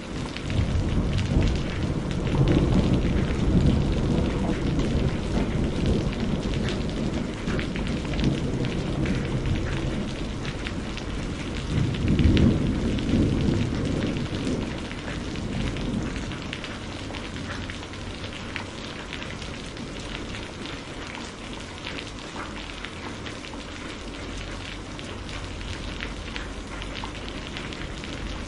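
Steady heavy rain with rolling thunder: a long low rumble over the first several seconds and a second swell about twelve seconds in, then rain alone.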